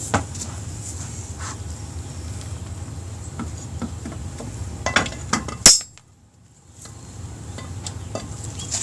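Metal tools and motorcycle wheel parts clinking and knocking during a rear-wheel install, a few scattered sharp clicks with the loudest knock just before six seconds in, after which the sound drops out for about a second.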